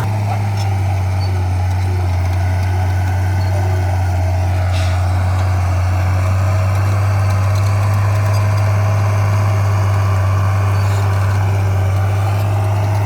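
Diesel engine of heavy earthmoving equipment running at a steady speed, a deep, even engine note that holds constant.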